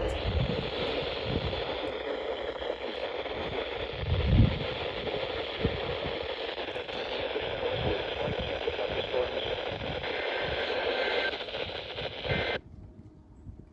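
Weather radio receiver hissing with static, with a few low thumps, the loudest about four seconds in; the static cuts off suddenly near the end.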